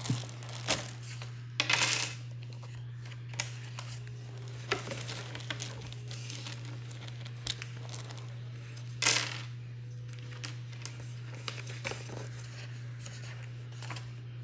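Wooden Scrabble tiles clicking and clattering now and then as they are handled, with louder rattles about two seconds in and again about nine seconds in, over a steady low hum.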